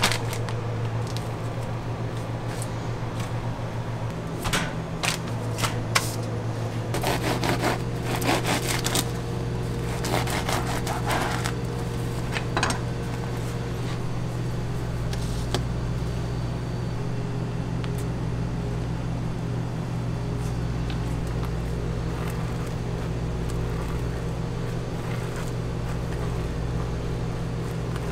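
Steady low hum of kitchen equipment, with a cluster of clicks, crinkles and scrapes from handling the plastic bag, bread and knife in the first half.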